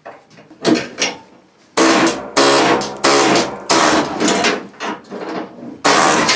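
Pneumatic air chisel (air hammer) chattering against thick steel frame metal in a string of bursts of about a second each, with the steel ringing; a couple of short taps first, then the long bursts from about two seconds in.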